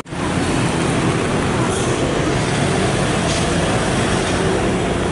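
Steady roadside traffic noise: the engines of passing vehicles running on the road, with a momentary drop-out at the very start.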